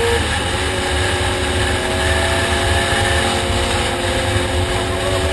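Motorcycle engine running. Its pitch drops just after the start and then holds steady over a steady low rumble.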